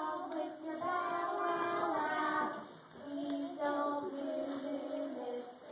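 A group of young children singing a song together in long held notes, with a brief pause about halfway through.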